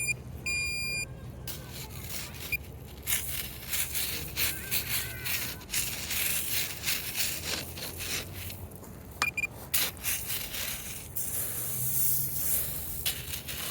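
Metal detector giving two short high beeps at the start and one brief beep about nine seconds in, between repeated scraping and crunching as a hand digger works into the ground to recover a target.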